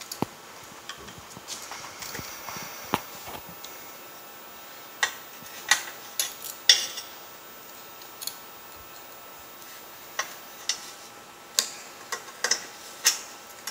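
Irregular sharp metallic clicks and clinks of pliers and steel springs as the springs are stretched and hooked into place on a hotsaw.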